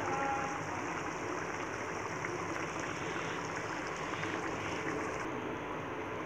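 Shing fish curry simmering in an open pan on the heat: a steady, even hiss.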